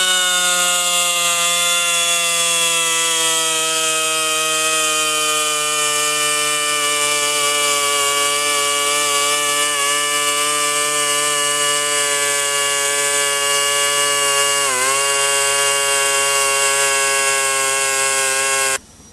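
Hand-held air-powered rotary tool with emery cloth in its end, spinning in a rusty bolt hole to clean the rust out: a steady whine over air hiss, its pitch sagging slowly and dipping briefly about fifteen seconds in as it bears on the metal. It cuts off near the end.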